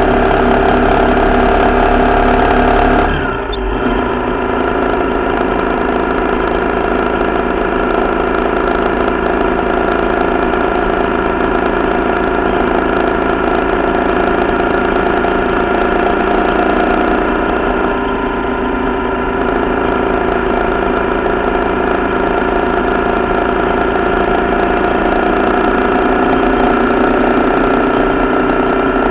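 Corven Triax 150 motorcycle's single-cylinder four-stroke engine running steadily under way, with a brief dip in engine pitch and loudness about three seconds in, over a low rush of wind on the microphone.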